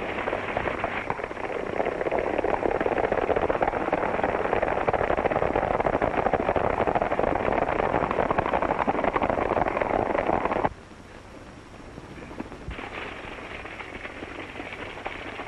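Several horses galloping, a dense rapid clatter of hooves. About ten seconds in it drops abruptly to a fainter, more distant gallop.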